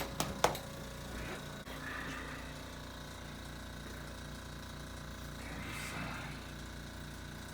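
Two sharp clicks at the very start, then a low mechanical hum that pulses evenly about four times a second.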